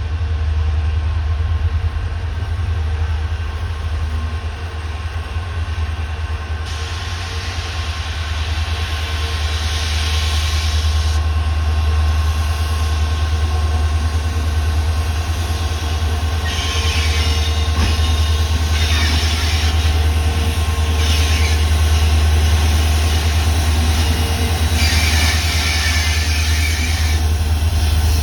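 WDG4 diesel locomotive's 16-cylinder two-stroke EMD 710 engine running with a loud, steady deep hum, joined several times by stretches of hissing wheel-on-rail noise as the locomotive rolls in.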